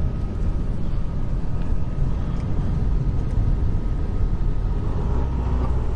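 Motorhome driving along the road: a steady low rumble of engine and tyre noise, heard from inside the cab.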